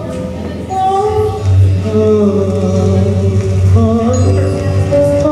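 Hip-hop backing track intro played over a PA: a sustained melodic line with a deep bass that comes in about a second and a half in.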